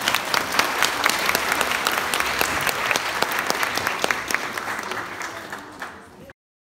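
Audience applauding, the clapping thinning and fading in the last second or so before cutting off suddenly near the end.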